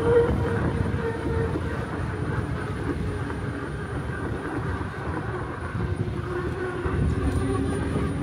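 Riding an e-bike: wind rushing over the microphone and rolling road noise make a steady low rumble, with a faint steady whine that is strongest at the start and again near the end.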